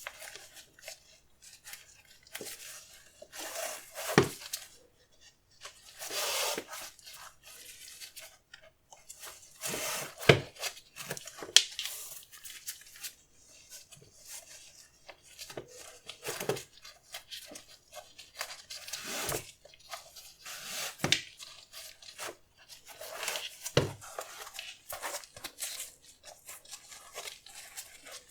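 Hands handling a new pair of sneakers and their packaging: bursts of rustling and rubbing, broken by about six soft knocks.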